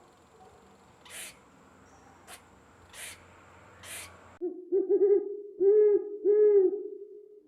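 An owl hooting, starting a little past halfway: a quick run of short hoots, then two longer, louder hoots. Before it, faint soft pulses come about once a second.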